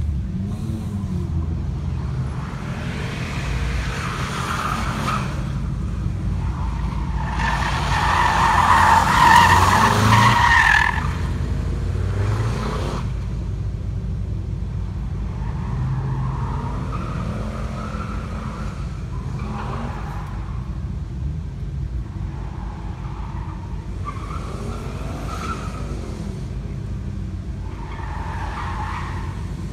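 Subaru XT turbo 4WD being driven hard around a track: its turbocharged flat-four engine revs up and down through the corners and gears, and the tyres squeal in the bends. The loudest tyre squeal and engine peak come about eight to eleven seconds in.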